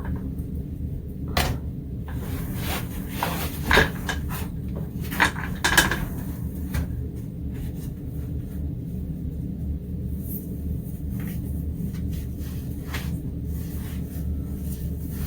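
Scattered clicks, knocks and light clinks of dishes and cutlery being handled, over a steady low hum.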